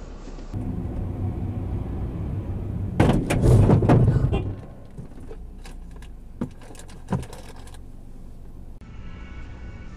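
Dashcam recording of a car collision, heard inside the car: steady engine and road noise, then a sudden loud crash about three seconds in lasting over a second, followed by two short sharp knocks.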